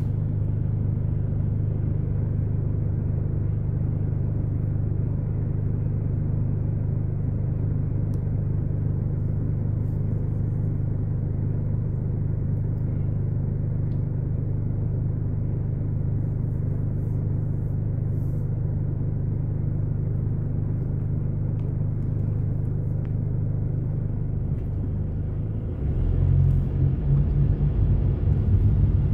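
Low, steady rumble inside a car waiting at a traffic light. About three seconds before the end it turns louder and rougher as the car pulls away.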